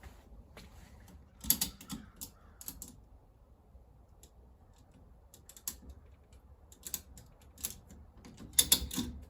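Irregular sharp clicks and light taps from paintless dent repair tools being worked on a car's quarter panel as pulling tension is set on glued tabs. There is a cluster of clicks early and another, louder one near the end.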